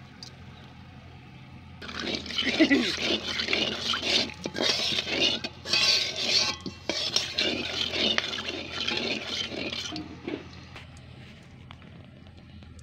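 Whole spices (bay leaves, cloves, cardamom, cinnamon) sizzling and crackling in hot oil in a metal wok, stirred with a steel spatula that scrapes and clinks against the pan. The sizzling and stirring start about two seconds in and die down after about ten seconds.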